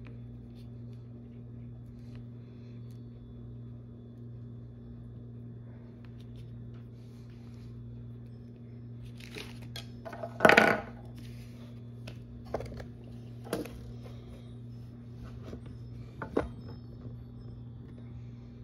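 Steady low hum with a few small clicks and taps of sculpting tools being handled and set down, the loudest about halfway through.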